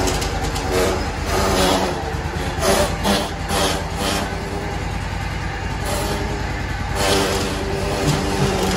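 Riding lawn mower's engine running steadily as the mower is driven slowly, with a few louder surges along the way.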